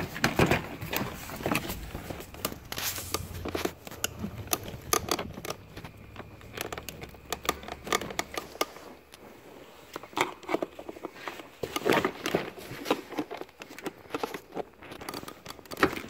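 Scattered plastic clicks, scrapes and light rattles of a trim tool prying at the wiring connectors of the door latch and lock actuator inside a 2002 Jeep Liberty's door.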